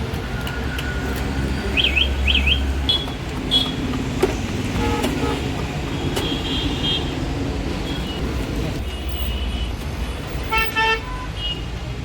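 Street traffic running steadily, with short vehicle horn toots, two of them in quick succession near the end.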